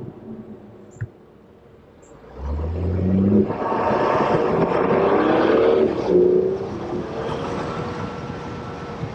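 BMW 535 F10 engine fitted with a Burger Motorsports aftermarket intake, its note rising about two seconds in under hard acceleration, loud for a few seconds, then easing off to a steadier, lower drone.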